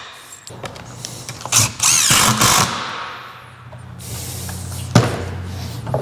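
Cordless drill driving a screw into a wooden board, running in a burst of about a second around two seconds in, then winding down. A sharp knock follows about five seconds in.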